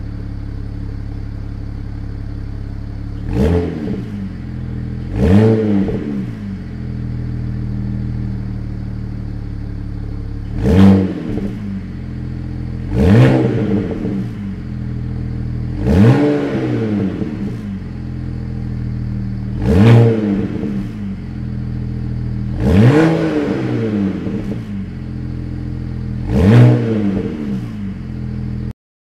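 BMW E92 335i's turbocharged straight-six on its stock exhaust, idling steadily just after a cold start and blipped eight times. Each rev is a quick rise and fall in pitch.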